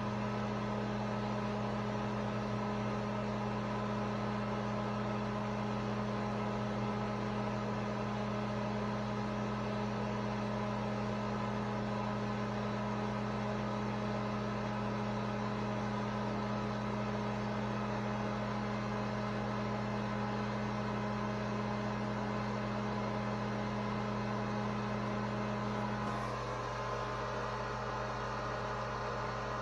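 A steady machine hum made of several fixed tones. About 26 seconds in, one of its tones drops out and it gets slightly quieter.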